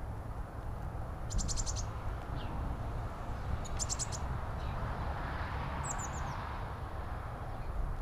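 Small songbird calling: a quick run of high, thin notes about a second and a half in, another about four seconds in, then a few falling notes near six seconds, over a steady low rumble.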